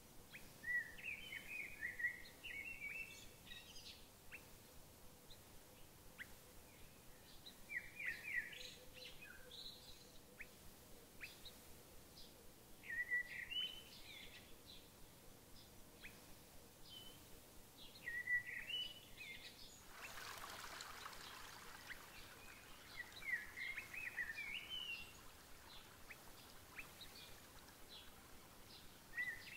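A songbird sings short phrases that climb from low to higher notes, about one every five seconds, over a faint background hiss. About two-thirds of the way through, a soft rush of noise swells for a couple of seconds.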